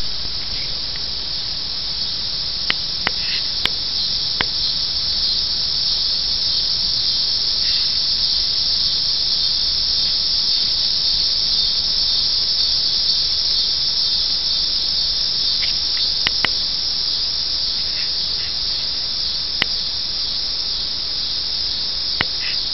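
Continuous high-pitched insect chorus, dense and unbroken, with a handful of brief sharp clicks scattered through it.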